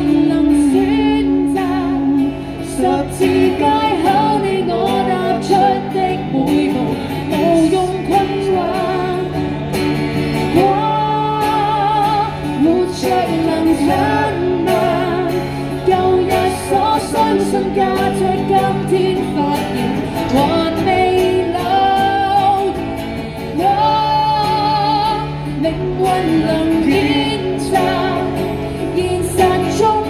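Live busking performance of a Cantonese pop song: amplified singing over an acoustic guitar, continuing without a break.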